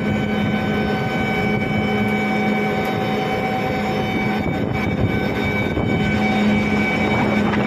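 Newly installed Carrier 06N screw compressor running steadily just after start-up: a constant machine hum with a few steady tones over a dense, even noise.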